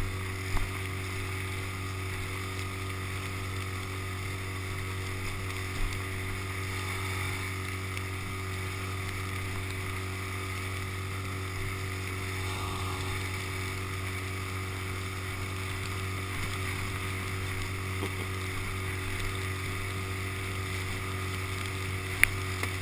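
Outboard motor running at a steady speed, pushing an inflatable dinghy through choppy water: a constant low drone with wind and water noise over it. A single sharp knock near the end.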